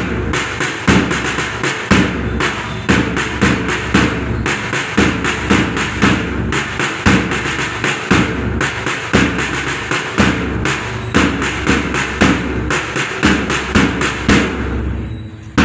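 Loud music with a steady, heavy drumbeat.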